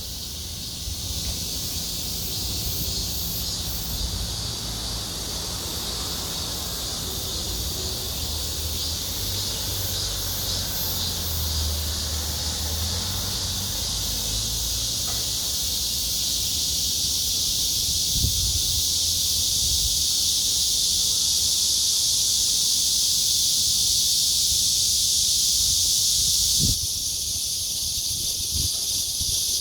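Cicadas singing in a loud, continuous high-pitched buzzing drone that swells gradually, then drops suddenly near the end. Low rumbling underneath in the first half.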